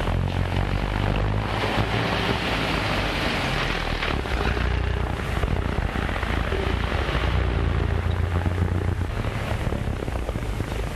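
Car engines running in street traffic: a steady low engine drone with a rushing noise that swells about two seconds in and again around eight seconds.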